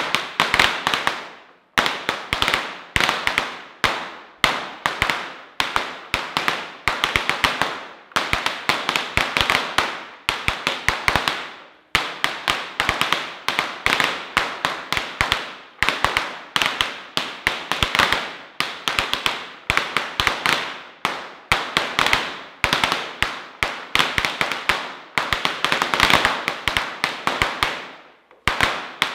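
A long string of firecrackers going off in rapid crackling volleys. The bangs come in dense clusters with short lulls every few seconds, echoing around a large hall.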